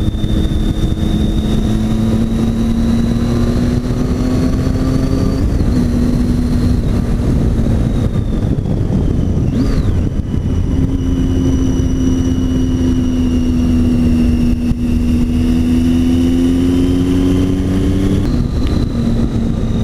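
Triumph Tiger 800 XC's three-cylinder engine pulling along at road speed, heard from the rider's seat under heavy wind rumble. Its pitch climbs slowly, with throttle or gear changes about five seconds in, around ten seconds, and near the end.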